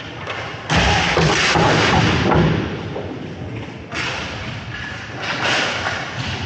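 Thuds and bangs of inline hockey play in an arena: a sudden loud impact about a second in, a dense clattering stretch after it, and further knocks later, echoing in the hall.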